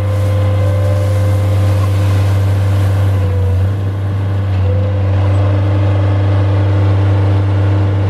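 Bobcat skid steer loader's engine running steadily under load as it works its lift arms, a loud low hum with a steady higher whine above it.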